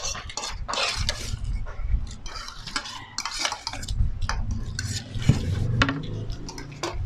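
Spoons and forks clinking and scraping against plates in quick, irregular strokes as people eat fast.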